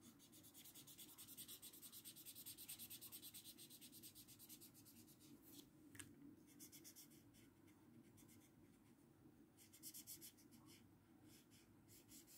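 Faint, rapid back-and-forth scratching of a felt-tip marker colouring in on paper, with short breaks about six and ten seconds in and a single light tick near the middle.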